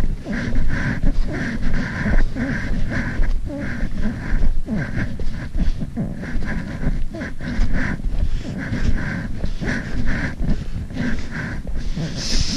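Footsteps crunching in packed snow at a steady walking pace of about two steps a second, over a constant low rumble.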